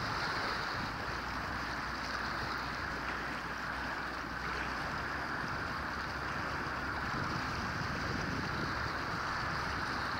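Wind gusting over the microphone with choppy water washing against the rocks, a steady rush throughout.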